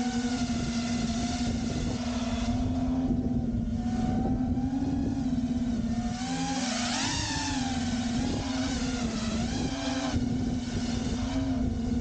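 Quadcopter motors and propellers whining steadily in flight, the pitch wavering with throttle changes and swelling up and back down about six to seven seconds in. A low rushing of wind on the microphone sits beneath the whine.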